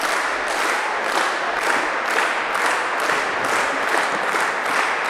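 Wrestling crowd clapping in unison, a steady rhythm of about three claps a second over a general din of applause.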